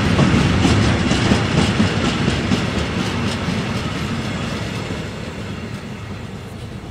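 Freight wagons of a slow goods train rolling along the track, their wheels clacking over rail joints, growing steadily fainter as the train draws away.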